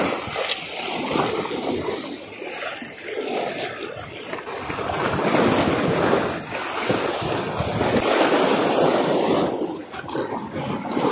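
Choppy sea water sloshing and lapping at the boat, rising and falling in surges, with wind buffeting the microphone.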